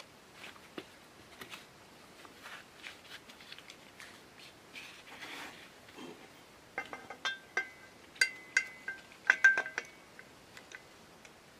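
Soft rustles and light taps from rubber-gloved hands handling the stove, then, about seven seconds in, a run of sharp metallic clinks with a short ringing note as a steel adjustable wrench knocks against the brass fuel valve of a Coleman 508A stove while being fitted onto it.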